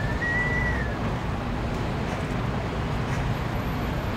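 Steady low rumble of city traffic, with a thin whistling tone in about the first second.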